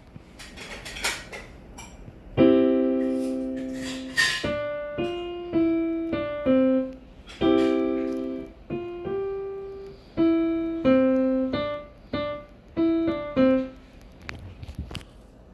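Piano playing a short tune, starting a couple of seconds in: a held chord, a run of single notes, another chord, then more single notes, stopping near the end. A few sharp clicks come before the first chord.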